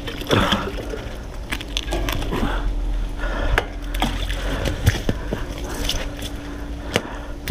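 Scattered clinks and knocks of scrap metal on a magnet-fishing magnet as it is hauled out of the water, with some water sloshing.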